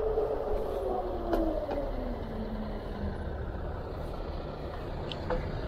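Addmotor Motan M-70 fat-tire e-bike's hub motor whining over a low rumble of wind and tyre noise. The whine falls steadily in pitch over the first three seconds as the bike slows.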